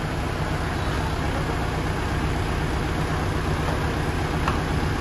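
Mitsubishi GX510 tractor's diesel engine idling steadily.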